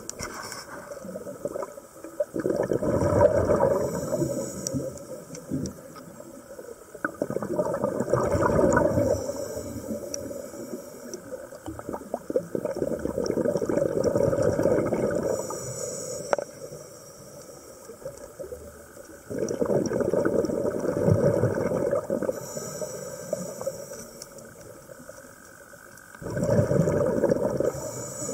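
A diver breathing underwater: exhaled air leaves the breathing apparatus as rumbling, gurgling bubble bursts, five of them about every five to seven seconds, with brief faint hisses of inhalation between.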